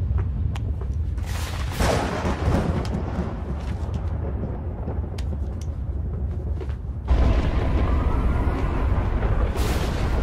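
Cinematic soundtrack: a steady low rumble with a few scattered clicks. About seven seconds in it gets louder and a slowly rising tone comes in, building tension.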